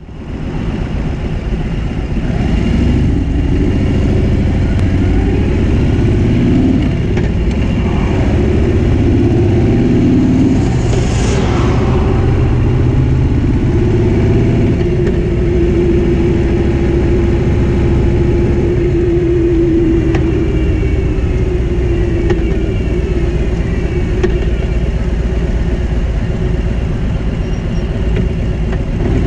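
Stock exhaust of a 2017 Harley-Davidson Road King's Milwaukee-Eight 107 V-twin running on the road, its pitch rising and falling as the bike pulls away and changes speed. It is picked up by the camera's built-in microphone behind the windshield and fades in at the start.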